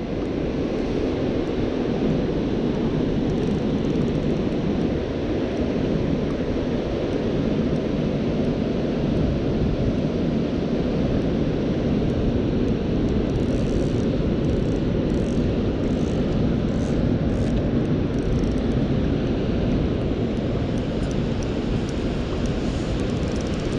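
Steady, even rushing of river water pouring over a weir.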